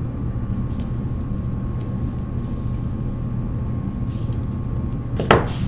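Steady low hum of background noise, with a few faint small clicks as pliers work a metal wire. A brief sharp noise comes near the end.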